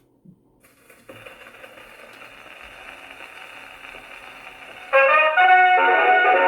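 Acoustic gramophone with a rebuilt salon sound box playing a 78 rpm shellac record. From about a second in there is steady surface hiss from the lead-in groove. About five seconds in, the band's brass-led music starts loudly, with a thin, boxy tone that has no high treble.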